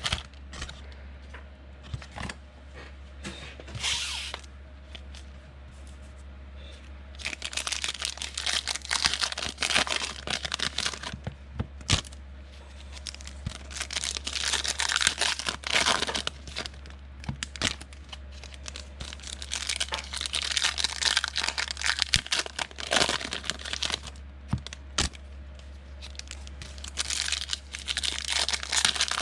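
Trading-card pack wrappers being torn open and crinkled by hand, in several bursts with a few sharp clicks between, over a steady low hum.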